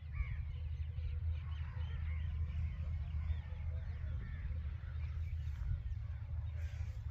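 Many birds chirping and calling in short, rising and falling notes over a steady low rumble.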